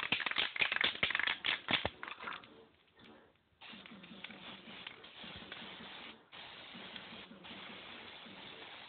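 Aerosol spray-paint can shaken, its mixing ball rattling, for about two seconds. After a short pause comes a steady hiss of paint spraying, broken once briefly partway through.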